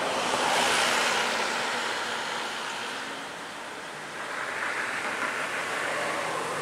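Road traffic passing close by: a vehicle's tyre and engine noise swells and fades within the first two seconds, then another vehicle approaches from about four seconds in, its engine hum growing.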